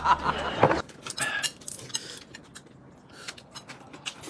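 A wavering, warbling pitched sound that stops just under a second in, followed by meal sounds at a table: small clicks and taps of chopsticks and bowls and noodle slurping.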